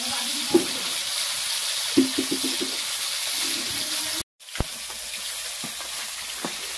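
Catfish pieces sizzling as they fry in oil in an aluminium kadai, with a metal spatula knocking and scraping against the pan as they are turned. The sizzling breaks off for a moment a little past halfway, then goes on slightly quieter.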